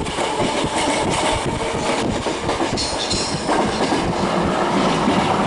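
Hankyu electric commuter train running past at close range, its wheels clattering over the rail joints, with a brief high-pitched squeal near the middle.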